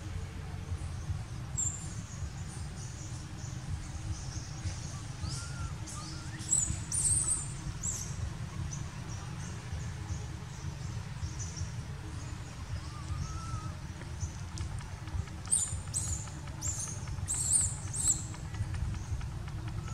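Outdoor ambience: thin, very high bird chirps in short clusters, a couple of seconds in, again around the middle and once more near the end, over a steady low rumble.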